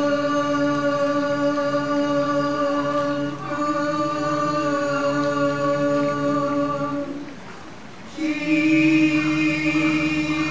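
Slow vocal chanting in long notes, each held at one steady pitch for about three to four seconds. A short pause comes a little past seven seconds in, and a louder held note follows.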